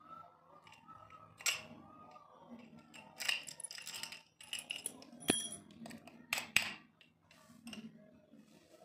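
Steel padlock and its keys clicking and clinking as the key is worked in the lock, with a series of sharp metallic clicks and short rings, then the lock and keys set down on a concrete floor.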